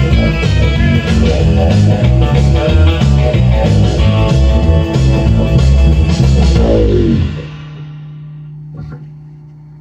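Rockabilly band playing the instrumental ending of a song live, guitar over bass and drums with a steady beat, stopping abruptly about seven seconds in. A low steady tone lingers after the stop, with a small click near the end.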